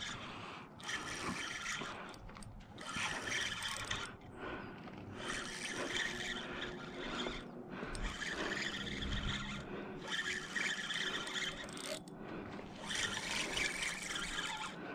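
Spinning reel being cranked in spurts to retrieve a cast topwater lure, a rasping whir in stretches of one to two seconds with short pauses between.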